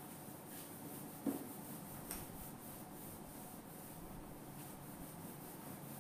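Whiteboard being wiped clean with a duster: faint repeated rubbing strokes, with a single knock about a second in.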